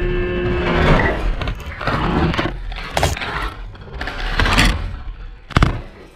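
A radio-controlled airplane built from Lego bricks crashing into a tree: a run of cracks, snaps and rustling as it smashes through the branches, then a hard knock about five and a half seconds in as it hits the ground.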